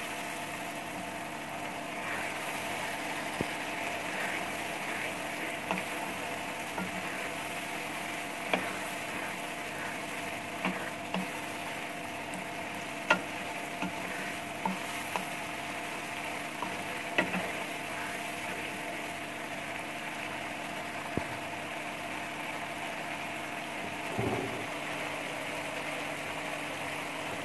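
Boiled black chickpeas frying in oil and spice paste in a wok: a steady sizzle, with scattered short knocks and scrapes of the spoon stirring them.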